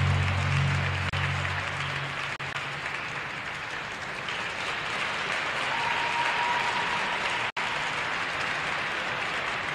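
Ice-rink audience applauding at the end of a figure skating program, a steady even wash of clapping; the program music's last low note dies away within the first two seconds.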